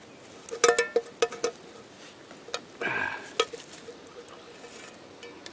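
Cookware on a campfire grill clinking and knocking: a quick run of sharp metallic knocks with a short ring about a second in, then a scrape and a couple more knocks around three seconds in.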